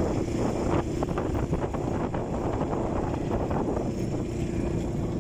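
Suzuki quad bike (ATV) engine running with a steady note while riding at cruising speed, heard from the rider's seat, with wind buffeting the microphone.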